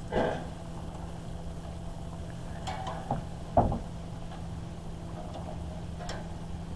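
Metal tongs tapping and scraping on a gas grill's grates a few times as grilled black sea bass collars are moved and lifted, over a steady low hum.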